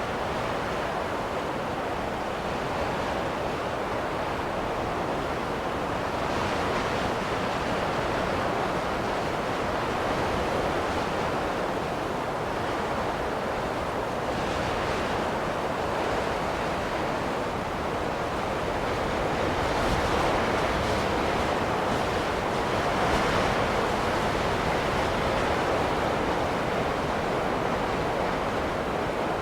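Snowstorm wind blowing in a steady rushing hiss that swells and eases gently at times.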